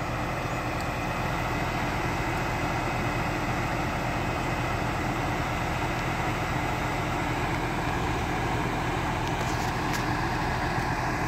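A vehicle engine idling steadily, with a constant low hum.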